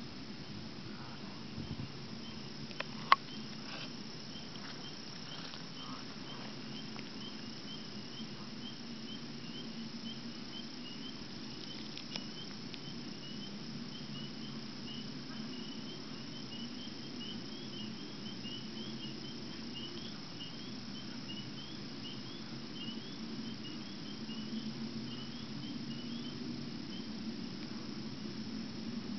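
Steady, hollow low drone of an unexplained distant rumble, like air through a pipe or a plant vent, swelling slightly near the end. Over it, an insect's rapid high chirping, and one sharp click about three seconds in.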